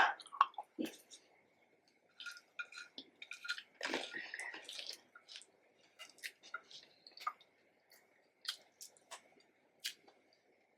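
Close-up eating sounds: chewing fried batuk and wet, spiced potato achar, with scattered smacks and clicks of the mouth. A loud burst comes right at the start, then the sounds are quieter and sparse.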